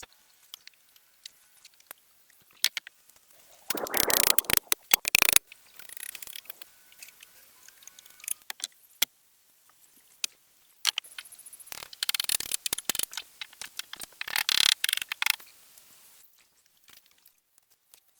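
Scattered clicks and knocks, with two louder stretches of scraping and crackling: one about four seconds in, lasting under two seconds, and a longer one from about eleven to fifteen seconds.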